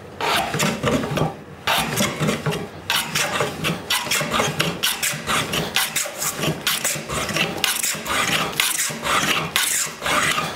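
Hand jointer plane taking repeated strokes along the edge of a wooden board, the iron shaving off long curls on each pass as the edge is flattened. The strokes come one after another, each a short scrape.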